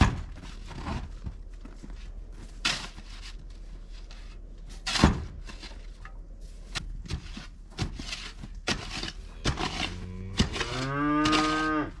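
Scattered sharp knocks and scrapes of digging at frozen, packed muck along a barn's sliding-door track, the loudest knock about halfway through. Near the end a calf moos once, a long call that rises and falls in pitch and is the loudest sound.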